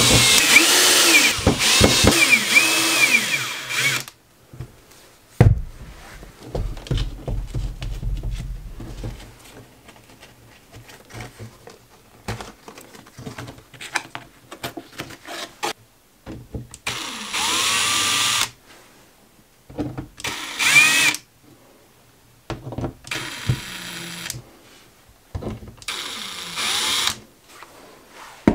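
Cordless drill boring mounting holes in a wall through a paper template: one long run of about four seconds at the start, then four shorter bursts later on, the motor speed rising and falling within each.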